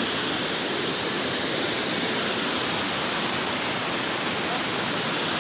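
Waterfall: falling water making a steady, even rush with no pauses.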